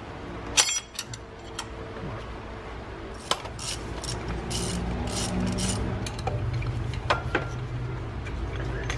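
Scattered metallic clicks and clinks of a 13 mm wrench working the engine's belt-tensioner bolt and the tensioner pulley being lifted off, over a steady low hum.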